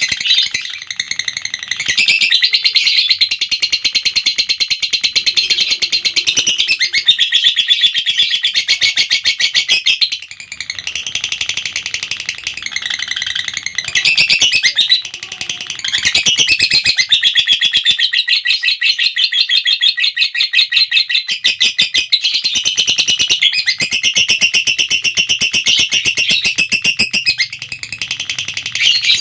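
Lovebird ngekek: long runs of very rapid, high-pitched shrill chirping that go on for several seconds at a stretch, broken by brief pauses a few times.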